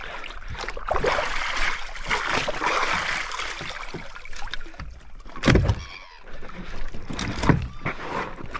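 Shallow water splashing and sloshing around a wading diver and his plastic float boat, with two heavy thumps a couple of seconds apart near the end.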